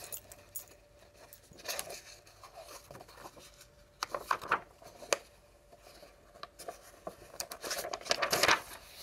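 Paper pages of a picture book rustling as they are handled and turned, in several short bursts, the longest and loudest near the end.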